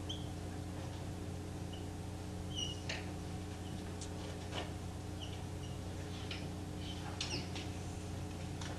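Whiteboard marker squeaking and tapping against the board as characters are written: short high squeaks and light taps scattered throughout, over a steady low hum.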